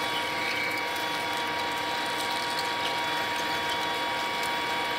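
Metal lathe running with a freshly sharpened high-speed-steel twist drill boring into a hard steel workpiece under flowing coolant: a steady machine whine of several even tones over a rough cutting noise with faint ticks. The drill is cutting easily, needing surprisingly little force, the sign of a good sharpening.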